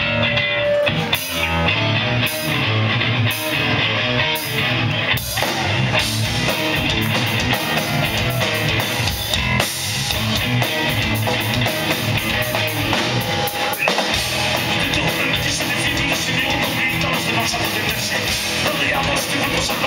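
Live rock band playing loudly: electric guitars, bass and drum kit, with stop-start hits in the first few seconds before the band settles into a steady full groove.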